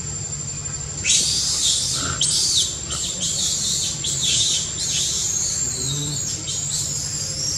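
Birds chirping and calling in a dense, overlapping chorus, starting about a second in, over a thin steady high-pitched tone and a low hum.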